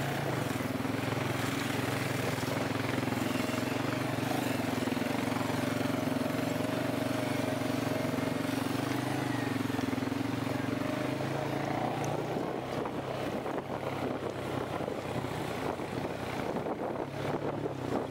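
Quad (ATV) engine running steadily under way on a dirt trail, heard from on board. The engine note holds even for about ten seconds, then becomes uneven with scattered knocks as the ride gets rougher.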